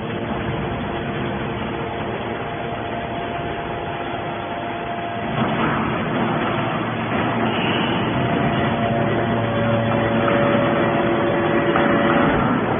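Hydraulic scrap metal baler running: a steady machine noise with several held whining tones. It grows louder about five and a half seconds in, and the tones shift in pitch.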